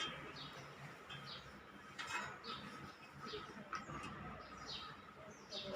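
Birds chirping: short, quick, downward-sliding chirps repeating every second or so over a faint steady hum.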